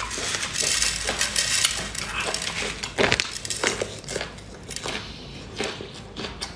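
Chili flakes poured from a plastic bag onto a plate, a dense noisy pour over the first couple of seconds. Then wet biting and chewing into soft raw seafood, with scattered clicks and smacks, the sharpest about three seconds in.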